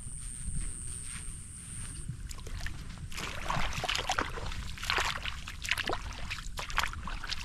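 Water splashing and sloshing irregularly, beginning about three seconds in, over a steady low rumble; a thin high whine stops about two seconds in.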